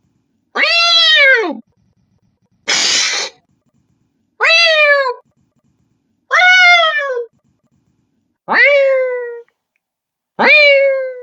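A person imitating a cat with the voice: five meows, each rising then falling, and one hiss about three seconds in.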